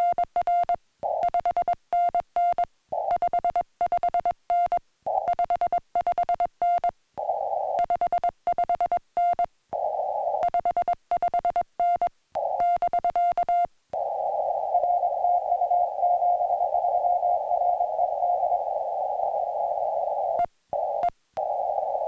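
Morse code on a portable ham radio: a tone of about 700 Hz keyed on and off in dits and dahs over a narrow band of receiver hiss. About 14 seconds in the keying stops and the hiss runs on with only a faint tone in it, cut by two brief dropouts near the end.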